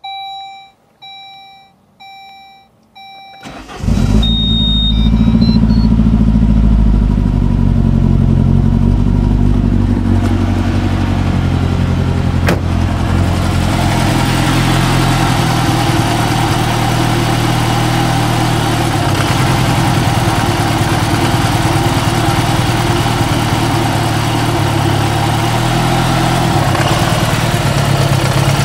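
Saab 9-3 warning chime beeping about four times, evenly spaced, with the ignition on. Then the Saab Ecopower turbo four-cylinder engine is started about four seconds in and settles into a steady idle, heard close up under the open bonnet in the second half.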